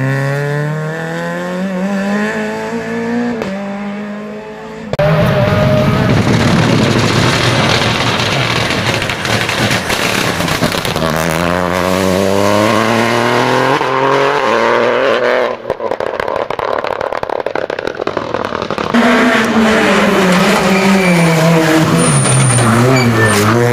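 Peugeot rally hatchbacks' engines revving hard, climbing in pitch through the gears, with sudden cuts from one car to the next. Near the end the engine note drops as a car brakes into a corner, then climbs again.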